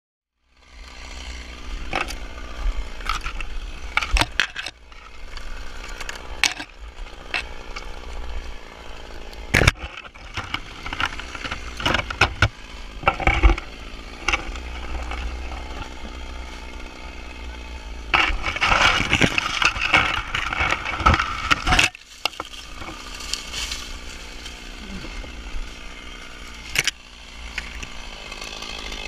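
Dry dead fan-palm fronds and trunk fibre crackling and scraping as a climber pushes through the frond skirt, with sharp snaps now and then. There is a denser stretch of crackling from about 18 to 22 seconds in, under a low rumble.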